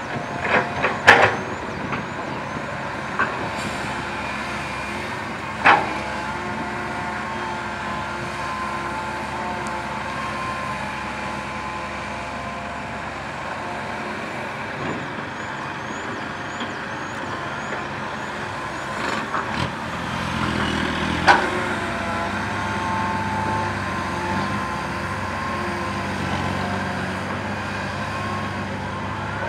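Diesel engines of a Komatsu PC130 excavator and a six-wheel dump truck running steadily. Sharp knocks of soil and rock dropping from the bucket into the truck's bed come about a second in, near six seconds and just past twenty seconds. The low rumble grows fuller about twenty seconds in.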